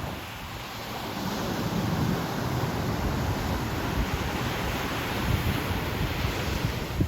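Ocean surf washing on a beach, with wind buffeting the microphone; the noise swells about a second in and then stays steady.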